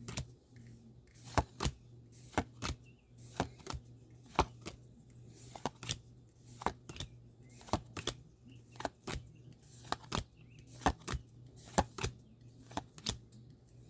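Pokémon trading cards being flipped through one by one, each card snapping or slapping against the stack in short, sharp clicks, irregularly about twice a second.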